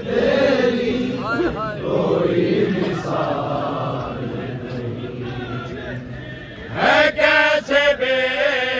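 Men's voices chanting a devotional manqabat together, several voices overlapping. About seven seconds in, a single loud male voice comes in clearly, singing long, wavering held notes.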